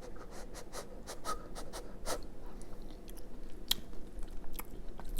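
A person chewing a mouthful of tater tot casserole close to the microphone, with many irregular mouth clicks.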